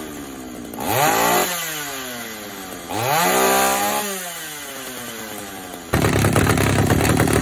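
Pioneer P41 66cc two-stroke chainsaw idling and blipped up to high revs and back down twice, then run loud and steady near the end. Its carburettor's high-speed jet has just been turned out a quarter turn because the saw ran lean and bogged at full throttle, and it now sounds better.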